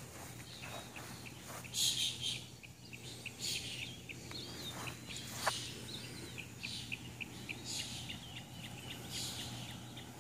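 Outdoor birdsong: small birds chirping, with a quick run of short, high chirps through the middle and later part. Mixed with a few footsteps on bare garden soil, the loudest at about two seconds in.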